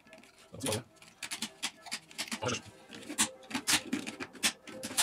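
Irregular clicks and knocks of small parts being handled and pried apart by hand: a car door's central-locking actuator and lock mechanism being taken to pieces.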